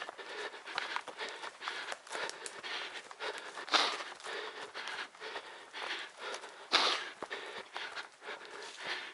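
A trail runner's heavy panting breath and footfalls, close to a body-worn camera, with a louder burst of breath or noise about every three seconds.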